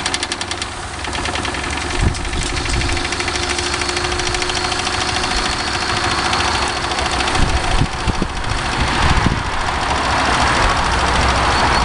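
Wilesco D20 toy steam engine running fast, a rapid even beat over a steady hiss, with a few louder knocks along the way.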